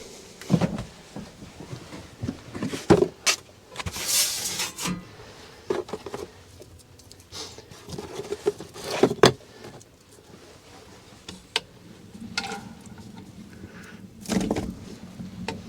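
Gear being handled and moved around in a small space: irregular knocks, clatters and rustles, with a short hiss about four seconds in. A low steady hum comes in near the end.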